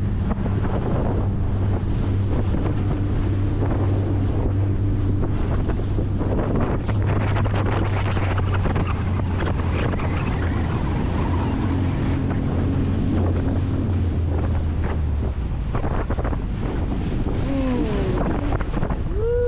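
Outboard motor of a small aluminium boat running steadily under way through choppy water, with heavy wind buffeting the microphone and water splashing against the hull. The engine's steady hum drops away about three-quarters of the way through, leaving mostly wind and water.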